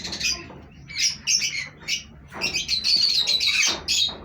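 Pet parrots and Java sparrows calling in a string of short, high calls, with a denser run of calls through the second half.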